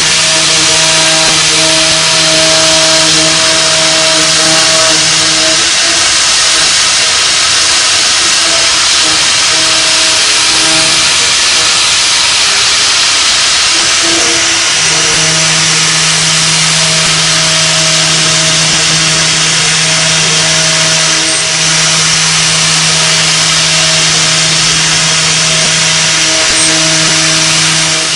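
CNC milling machine cutting metal with an end mill: a loud, steady cutting hiss over a steady machine hum, the hum dropping away for several seconds around the middle and coming back.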